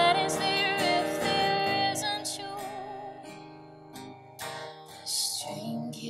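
A woman singing live over strummed acoustic guitar, in an indie-folk song. The music thins and grows quieter through the middle, then a breath and her voice return near the end.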